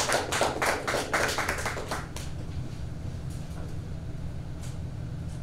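Small audience applauding, dying away about two seconds in, leaving a low steady hum.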